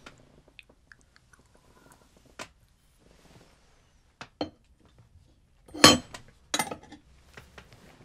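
Light clinks and knocks of a small metal communion cup being handled and set down after drinking. There are a few soft clicks, and the loudest knock comes about six seconds in, with another just after.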